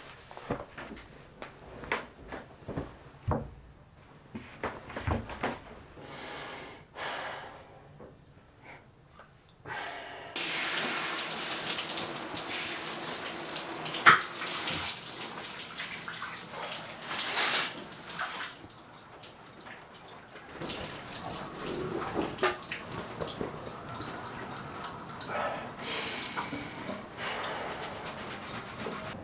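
Shower running: a steady spray of water starts suddenly about a third of the way in, after a few scattered knocks and movement sounds.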